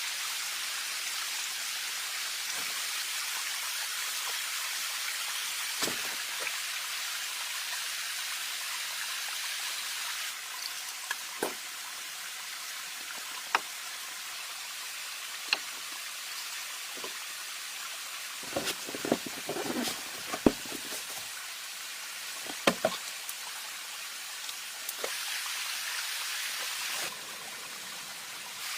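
Steady rush of flowing water, like a stream. Scattered sharp knocks and clicks sound over it, with a busy cluster about two-thirds of the way in.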